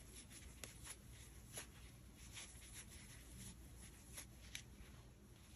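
Near silence with faint, scattered light ticks and rustles of a crochet hook working chunky acrylic yarn.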